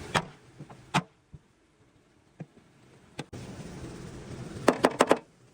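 Sharp knocks: single ones at irregular spacing, then a quick run of four or five in under half a second near the end.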